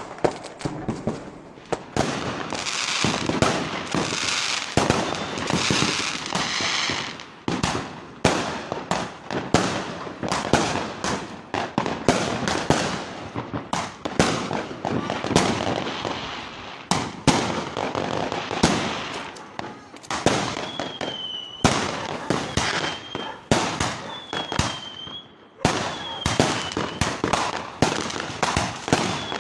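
Fireworks going off in quick succession: a dense run of sharp bangs with crackling between them. In the last third a thin whistle sounds several times among the bangs.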